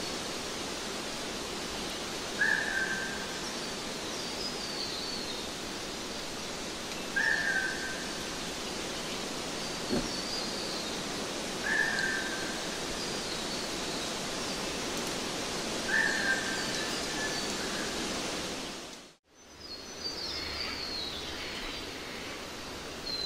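Steady hiss-like outdoor ambience with a bird calling a short note about every four and a half seconds, and fainter high chirps between the calls. The sound drops out for a moment near the end, then comes back.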